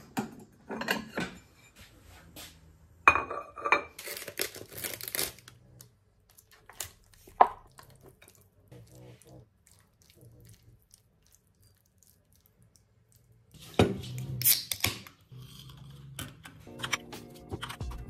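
Ceramic plates clinking as one is lifted out of a dish drawer, then a fork scraping and clinking against a plate as food is served onto it. The sounds come as short, sharp clatters, with a quiet stretch in the middle.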